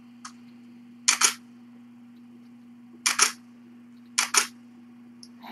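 Camera shutter firing three times, each a quick double click: about a second in, three seconds in, and four seconds in.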